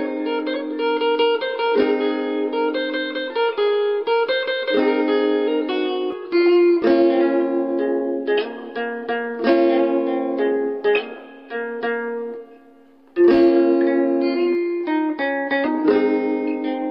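Nylon-string classical guitar played fingerstyle: a plucked melody over bass notes. Near three-quarters of the way through the notes die away almost to nothing, then the playing resumes with a loud chord.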